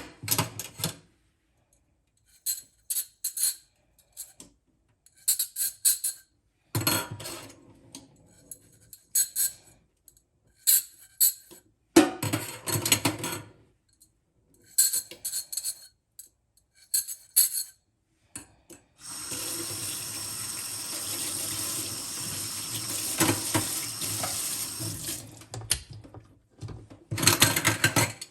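Kitchen handling sounds: scattered clinks and knocks of glass and dishes, then a tap running steadily for about seven seconds before the clinking resumes near the end.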